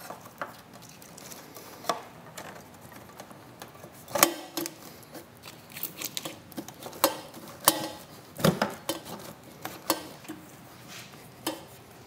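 Fork shroud covers being fitted around a motorcycle's front forks by hand: scattered small clicks, taps and light knocks of the parts going into place, irregularly spaced, the loudest about four seconds in.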